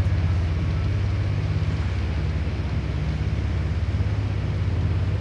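A river sightseeing boat's engine running steadily under way: a low hum with a fast, even pulse over a steady hiss.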